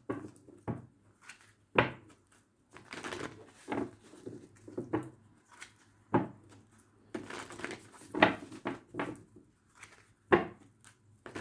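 A deck of tarot cards being shuffled by hand: soft rustling and slapping of cards, with several sharper taps scattered through.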